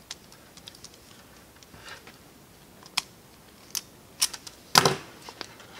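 An automatic wire stripper clicking and snapping as its jaws grip a wire and pull the insulation off the end. There are a few sharp clicks, and the loudest snap comes near the end.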